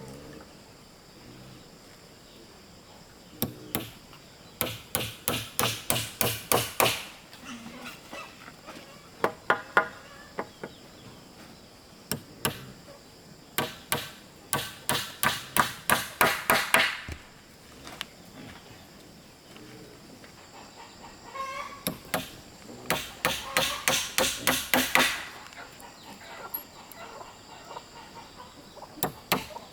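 A hammer driving nails into wood in quick runs of blows, about four a second, several runs with pauses between them.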